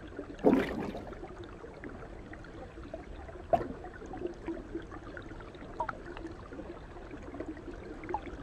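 Soft, steady stream-water ambience. A short, louder swish comes about half a second in, and a sharp click about three and a half seconds in.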